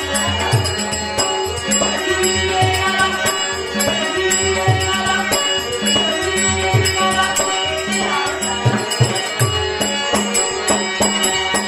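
Live folk-theatre accompaniment: a harmonium holds steady chords over repeated low drum strokes, with jingling metal percussion clinking throughout.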